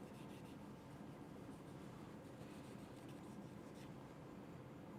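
Faint, soft rubbing and light scratching as the HP 20S calculator's contacts are cleaned by hand, against a quiet room hiss.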